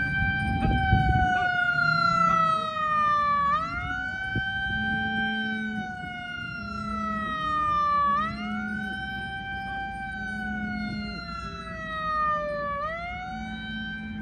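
A siren wailing in slow cycles, each a quick rise in pitch followed by a long falling glide of about four and a half seconds, repeated about three times.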